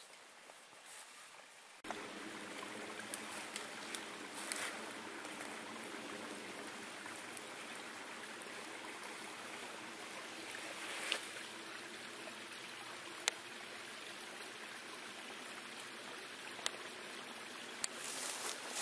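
Steady rushing outdoor noise, with a few sharp snaps of dry branches as a hiker climbs through the dead branches of a fallen spruce.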